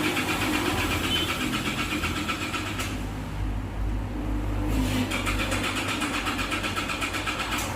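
Engine being cranked by its starter motor in two spells with a short pause between, a fast even chugging rhythm.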